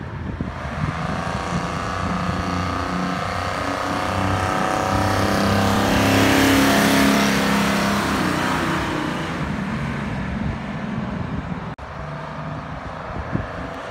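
A 1967 GMC Ansair Scenicruiser coach driving past. Its engine grows louder as it approaches, is loudest about six seconds in as it goes by, then drops in pitch and fades as it pulls away.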